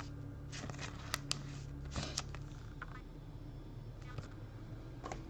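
Trading cards being handled: brief rustling of cards and plastic sleeves with a few sharp clicks bunched together about one to two seconds in, quiet otherwise.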